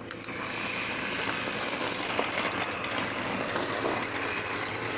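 Battery-powered Plarail toy trains running on plastic track: a click, then a fast, steady mechanical rattle of small motors, gears and wheels that builds up over the first second.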